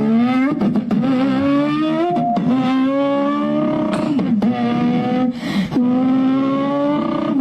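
A boy's voice imitating a car engine accelerating: a held hum that climbs steadily in pitch, drops and climbs again about four times, like an engine running up through its gears.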